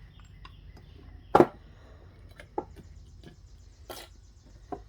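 Steel transmission parts from a 4L65 planetary gearset knocking and clinking together as they are handled and fitted back together. There is one loud clank about a second and a half in, then a few lighter clinks.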